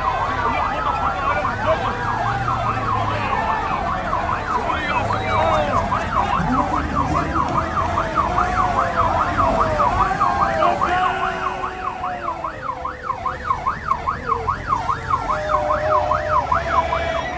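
Police van siren sounding over a noisy crowd: slow rising and falling wails at first, then a fast yelp of about three sweeps a second from about halfway through.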